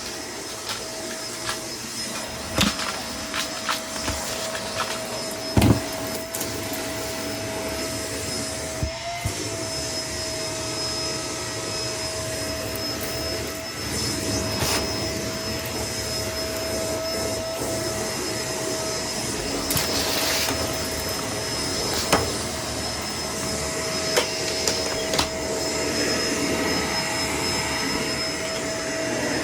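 Vacuum cleaner running steadily with a constant whine, dipping briefly about nine seconds in. Scattered sharp clicks and rattles are heard, the loudest about five and a half seconds in, typical of debris being sucked up during a mess pickup test.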